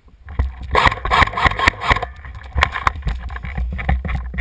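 Irregular knocks and scuffing from a player moving through the debris, over a steady low wind rumble on the helmet camera's microphone.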